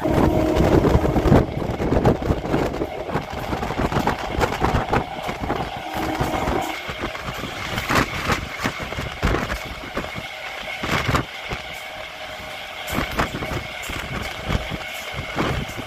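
MEMU electric multiple-unit train running at speed, heard from its open doorway: a steady rushing running noise with irregular clicks and knocks from the wheels on the rails.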